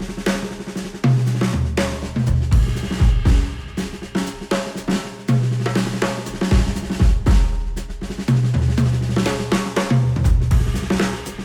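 Instrumental music with a busy drum kit (snare, kick, hi-hat and rolls) over a held bass line, without vocals. It is played back through open-back studio headphones and picked up by microphones at the earcups.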